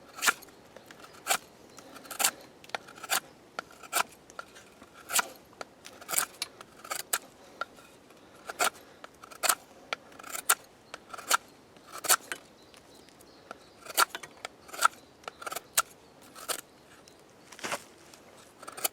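Folding knife's tanto blade planing shavings off dry wood: a series of short sharp cutting strokes, roughly one a second and irregularly spaced.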